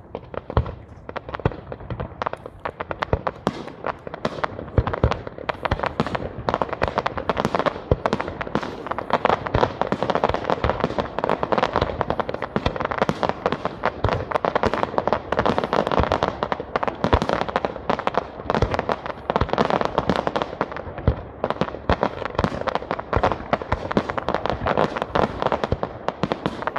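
Aerial fireworks display: a dense, unbroken barrage of shell bursts and crackling effects, with many sharp bangs overlapping throughout.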